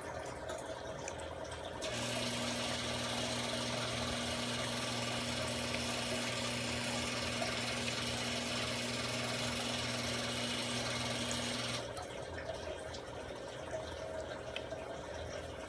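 Aquarium water trickling steadily, with a small electric motor switching on about two seconds in and running with a steady hum and hiss for about ten seconds before cutting off suddenly.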